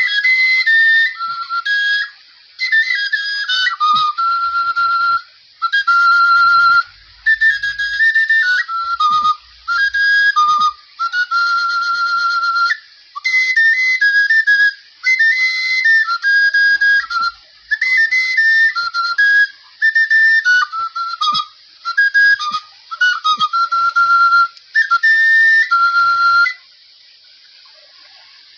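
Igbo oja, a small carved wooden flute held in cupped hands, played as a melody of high, stepped notes in short phrases separated by brief breaks. The playing stops about two seconds before the end.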